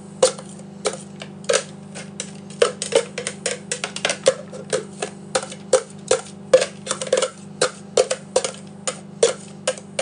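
Irregular plastic clicks and knocks, about two to three a second, as grated carrot is scraped and tapped out of a plastic container with a spatula.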